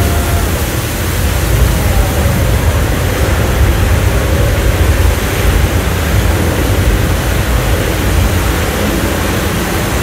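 Simulated earthquake effects: a loud, steady deep rumble mixed with rushing noise like flood water, with no distinct impacts.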